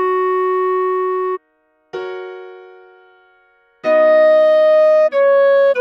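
Synthesized melody played one note at a time. A held note stops about one and a half seconds in, followed by a short gap. A single note then fades away, and a run of held notes starts at about four seconds.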